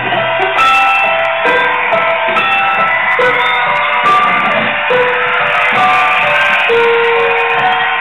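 Instrumental break in a gospel hip-hop song: a melody of held notes over a beat, with no rapping.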